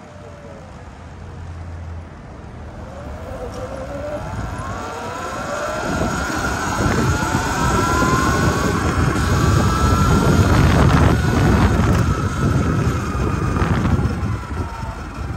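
Sur-Ron electric dirt bike pulling away and speeding up: its electric motor whine rises in pitch over the first several seconds, then holds steady at cruising speed. Wind rush on the microphone grows louder as the bike gains speed.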